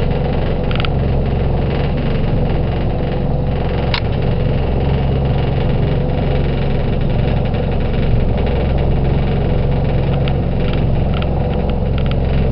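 Motorboat engine running steadily under way: a low, even drone with a steady hiss above it. A single short sharp click about four seconds in.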